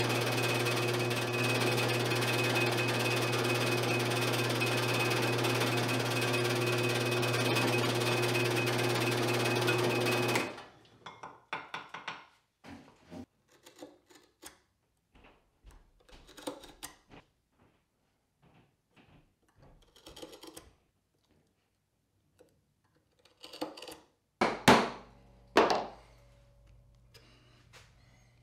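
A drill press motor running steadily with a low hum and a high whine as a twist bit drills into a wooden strip, stopping suddenly about ten seconds in. Then light scratching and clicks of a marking knife drawn against a steel square on the wood, and near the end a few sharp strikes as a metal punch is driven into the strip.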